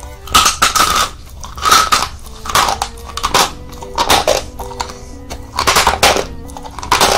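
Close-miked chewing of a mouthful of chalk chunks: loud, gritty crunches about once a second, over quiet background music.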